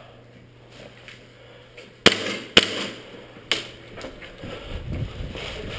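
Three sharp airsoft gun shots: two loud cracks half a second apart about two seconds in, and a weaker third about a second later. They are followed by running footsteps and gear rustling.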